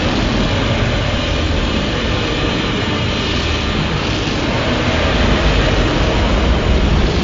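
Loud, steady rumbling noise from a monster sound-effect clip, dense and even with no clear pitch.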